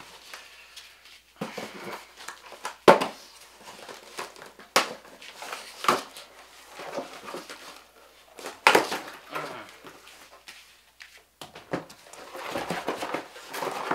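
Cardboard shipping box being opened: a knife slitting the packing tape, with sharp knocks of the box being handled and rustling scrapes as the flaps are pulled open.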